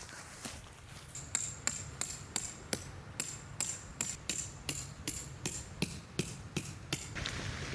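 Hammer driving a metal tent peg into the ground: a steady run of ringing metal-on-metal strikes, about three a second, that stops about seven seconds in.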